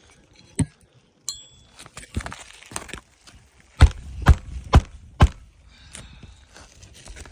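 Hammer driving roofing nails into asphalt shingles during a shingle repair: a few scattered taps and a metallic clink, then four sharp blows about two a second in the middle.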